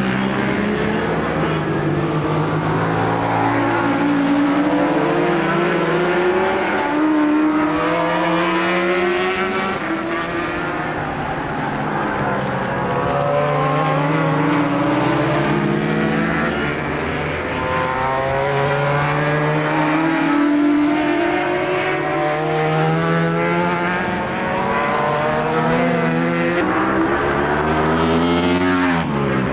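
Several racing motorcycle engines running hard and overlapping, their pitch climbing and dropping again and again. Near the end one bike passes close, its note rising then falling sharply.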